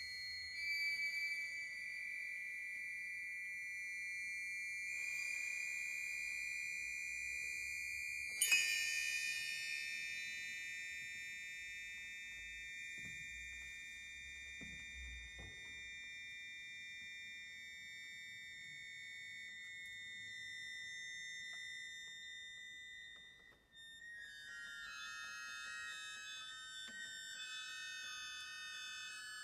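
Contemporary chamber music for accordion and ensemble in a high register: long held high tones that slowly sink in pitch, a sharp accented attack about eight seconds in, then quick shifting high note figures near the end.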